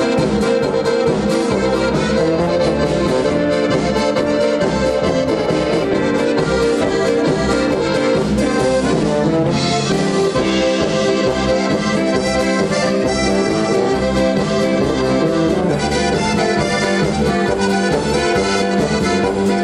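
Live band music led by a Pečjak diatonic button accordion (button box) playing the tune, with a second, piano accordion and a steady bass beat underneath.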